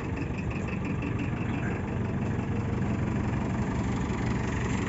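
JCB 4CX backhoe loader's diesel engine idling steadily.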